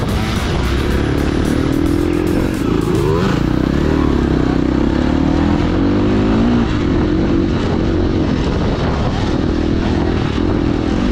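Off-road vehicle engine running while riding, its pitch rising and falling with the throttle, over steady wind and ride noise.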